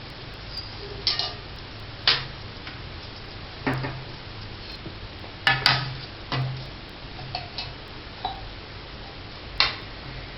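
A metal spoon clinks against a cooking pan about eight times at irregular intervals while spiced milk is stirred at a simmer. Some clinks ring briefly, over a steady hiss.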